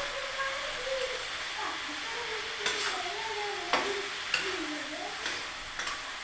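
Kitchen cooking sounds: a steady hiss of food frying in a pan, with several sharp clicks of a utensil from about the middle on. Faint wavering tones sit in the background.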